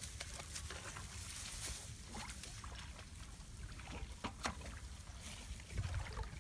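Shallow water sloshing and splashing in short, irregular strokes, with a steady low rumble underneath.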